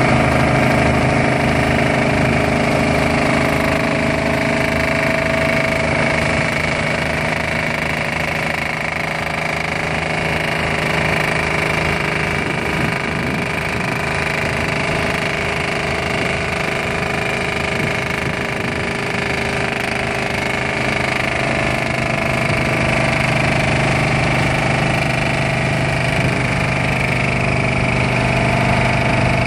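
Bruce SGV-400 vibratory hammer running, vibrating a steel sheet pile down, together with its hydraulic power pack's engine: a loud, steady hum with a fine low rattle.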